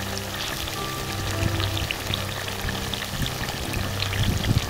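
Chicken curry bubbling and simmering in a clay pot, stirred with a wooden spoon, with scrapes and knocks louder near the end, under background music with held notes.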